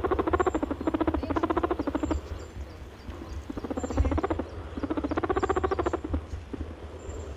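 An animal's rapid pulsing trill, a fast even buzz of pitched pulses, coming in bouts of one to two seconds with short gaps between them, over a steady low hum.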